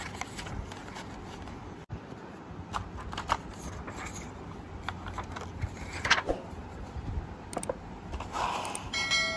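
Hands lifting black wired Realme Buds Classic earphones and their cable out of a white packaging tray: scattered clicks, rustles and scrapes of the packaging and cable. A short ringing tone comes near the end.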